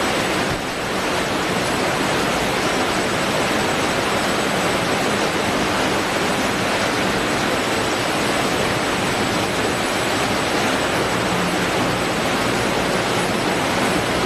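Steady, loud roar of fish-processing machinery on a ship's factory deck, an even wash of noise with no rhythm or change.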